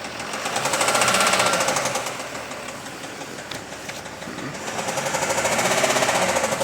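Jaguar XF S 3.0 V6 diesel engine revved twice, swelling up and dropping back each time, with a fast rattling tick running through its sound.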